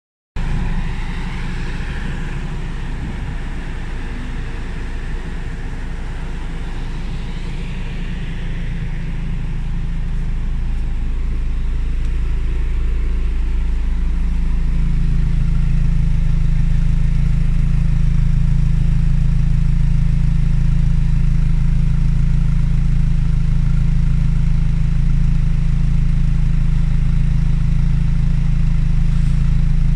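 Lotus Elise S2's four-cylinder engine idling steadily, heard at its exhaust. The sound grows louder about halfway through as the microphone comes down to the twin tailpipes, then holds steady.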